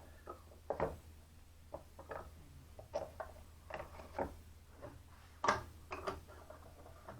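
A series of irregular light taps and clicks from small objects being handled and set down, the loudest about five and a half seconds in, over a steady low hum.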